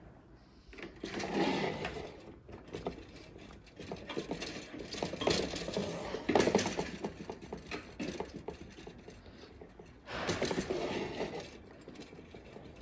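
Wire guard of a small electric heater rattling and scraping in three bouts, about a second in, around the middle and near the end, as a cat paws and pushes at the metal grille.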